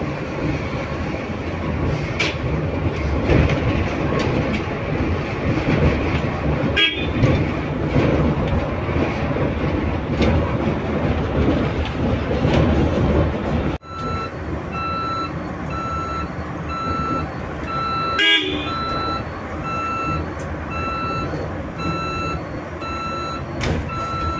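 Electric bus on the move, heard from inside: steady road and tyre noise, with a brief sharp sound about 7 s in and another about 18 s in. From about 14 s in, an electronic warning beep repeats about one and a half times a second over the road noise.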